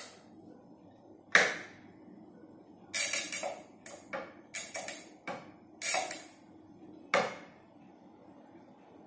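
Wooden toy pieces knocked and clattered together by a baby: a run of irregular sharp knocks, some in quick flurries, the loudest about a second and a half in and around three and six seconds in.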